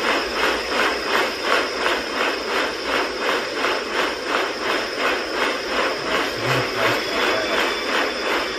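Rhythmic hissing or whooshing noise pulsing about three times a second, steady throughout, with a few low thuds near the end.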